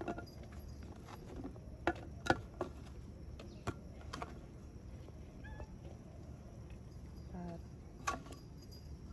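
Okra pods being dropped by hand into a stainless-steel soup pot, with a handful of sharp clicks and knocks against the pot and serving plate over a low steady hum.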